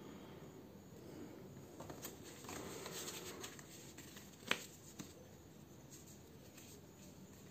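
Faint rustling of paper leaflets being handled and sorted, with one sharp click about four and a half seconds in and a smaller one half a second later.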